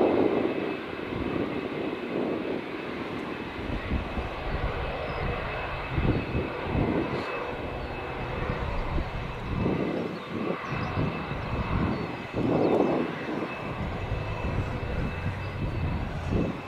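Airbus A380's jet engines running at taxi power: a steady high whine over a broad engine rush, with low rumble that swells and fades several times.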